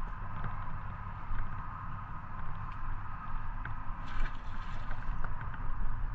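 A brief splash of water at the shoreline about four seconds in, over a steady low rumble and hum.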